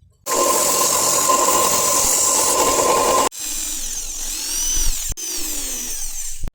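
Small electric motor running at high speed with a steady whine, in three cut-together stretches; in the last two its pitch rises and falls as the speed changes.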